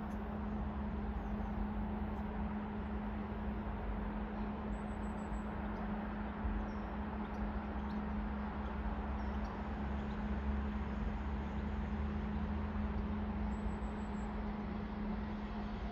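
Diesel locomotive approaching in the distance: a steady low engine hum and rumble.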